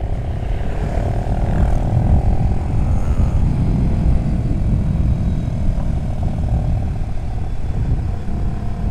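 Wind buffeting the microphone of a moving motorcycle, with the 2015 Yamaha New Vixion Advance's 150 cc single-cylinder engine running underneath at cruising speed, its note rising and easing a little.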